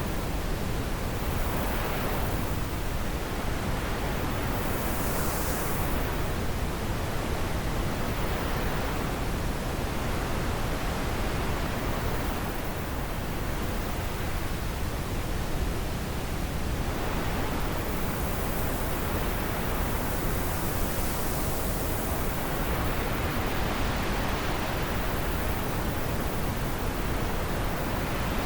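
Wind blowing steadily, with gusts that swell and ease every few seconds.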